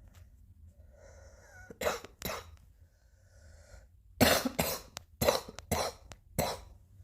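A fit of coughing: two coughs about two seconds in, then a run of about six quick coughs from about four seconds in, with a noisy breath drawn in before each bout.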